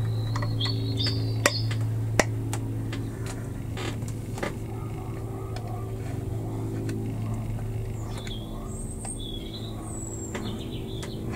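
Small clicks and taps from hands working plastic model parts and a length of wire, two of them sharp and loud about one and a half and two seconds in, over a steady low hum. Short high chirps come near the start and again late on.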